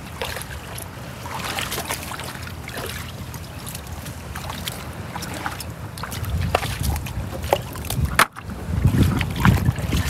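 Wind rumbling on the microphone, stronger in the second half, with scattered small clicks and splashes as someone wades through a shallow tide pool on a rocky reef.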